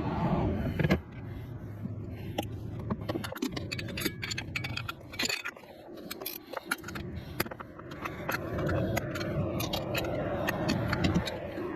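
Metal tools and hardware clinking and scraping in quick, irregular clicks, over a steady low hum.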